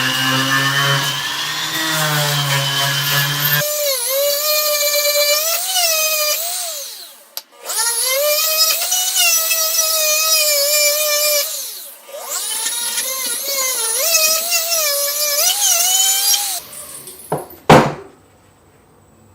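Small high-speed rotary power tool running in three bursts, its whine dipping and recovering in pitch as it is pressed against the work. A lower-pitched motor runs before it, and a few sharp clicks come near the end.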